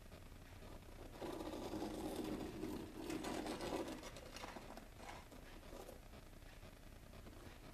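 Fine model-railroad ballast trickling and pattering off a plastic spoon onto N scale track ties. It begins about a second in as a soft rattling patter, then thins to scattered light ticks.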